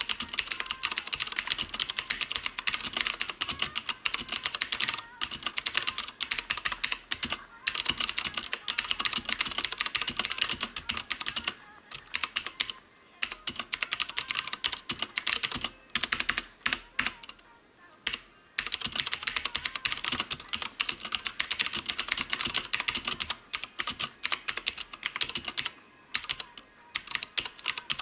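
Fast typing on a HyperX Alloy FPS Pro mechanical keyboard with Cherry MX Blue switches: a dense stream of clicky keystrokes broken by several short pauses.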